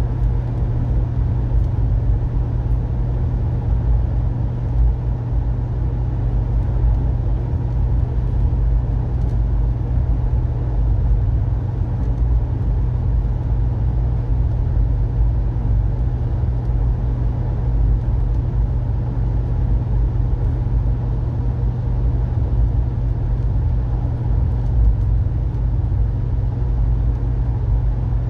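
Passenger train running at speed, heard from inside its dome car: a steady low rumble with a constant low hum under it.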